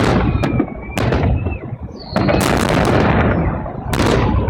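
Fireworks shells of a public salute bursting overhead: several loud booms, each followed by a long rumbling echo.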